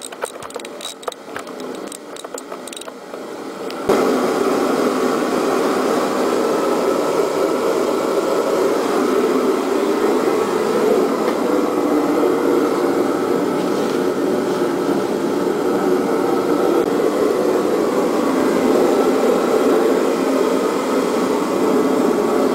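A few light clicks and knocks, then a steady mechanical noise that starts abruptly about four seconds in and keeps up evenly.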